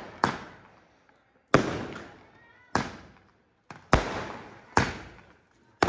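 Firecrackers going off in quick succession: about six sharp bangs, roughly one a second, each trailing off in an echo.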